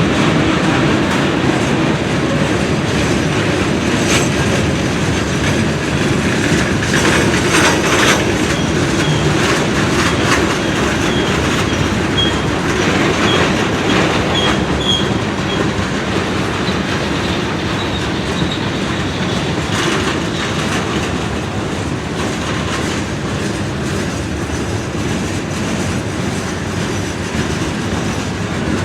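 Freight train cars rolling past on the rails, wheels clicking over rail joints, with a run of short high wheel squeals about halfway through. The rolling slowly eases toward the end.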